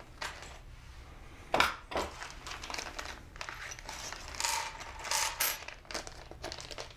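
Small plastic hardware bag crinkling as it is opened, with the small screws inside clinking and rattling as they are tipped out onto the sled panel, in scattered clicks that come thicker in the second half.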